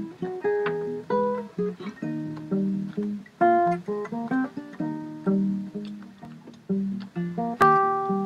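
Solo acoustic guitar played fingerstyle: a plucked melody over a bass line, each note ringing and fading. A louder chord is struck about seven and a half seconds in.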